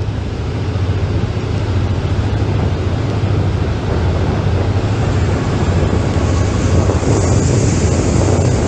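Steady rush of a boat's wake churning at the stern over the low, even drone of its engine, with wind on the microphone.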